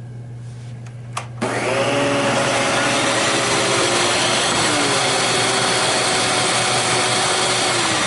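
Hyla water-filtration vacuum cleaner switched on: a click, then about a second and a half in the motor starts abruptly, spins up within half a second and runs steadily with a loud rushing whine.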